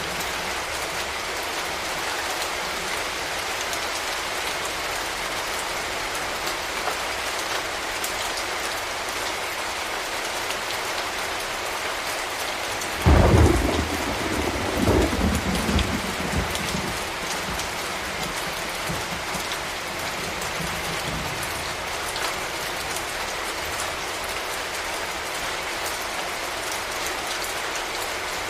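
Steady rain falling, an even hiss, with a sudden clap of thunder about halfway through that rumbles on for three or four seconds before fading back into the rain.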